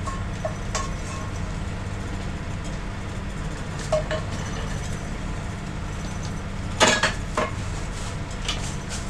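Plates and cutlery clinking a few times as a meal is dished up, loudest about seven seconds in, over a steady low drone from the sailboat's engine.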